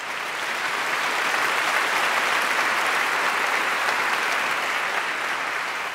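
Large audience applauding in an auditorium. The applause builds over the first second, holds steady, then eases slightly near the end.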